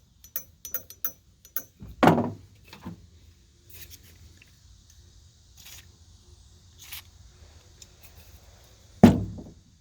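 Small chainsaw parts and hand tools being handled, giving scattered light clicks, with a dull knock about two seconds in and a louder one near the end.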